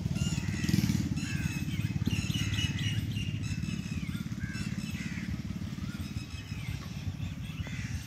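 Many birds chirping and calling in short, quick notes over a steady low rumble; the calls thin out towards the end.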